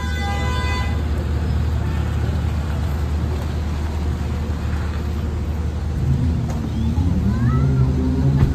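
A car horn toots briefly at the start, over a steady low rumble of a car engine as a car rolls up and stops. In the last couple of seconds voices call out and there are a couple of sharp clicks, around the time a car door is opened.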